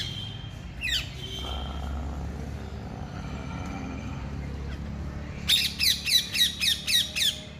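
Parakeets screeching: a couple of harsh squawks near the start, then a rapid run of about eight shrill calls near the end, each dropping in pitch.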